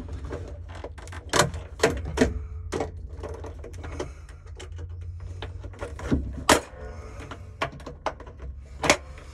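Scattered sharp clicks and knocks, about six of them at irregular intervals with the loudest about two-thirds of the way in, from hands working with tools and wiring parts. A steady low hum runs underneath.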